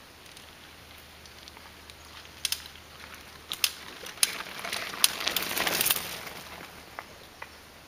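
Mountain bike riding over a cedar-plank trail bridge: its tyres rumble on the wooden planks, growing louder as it approaches and passes, with sharp clacks and rattles from the planks and bike, then fading away.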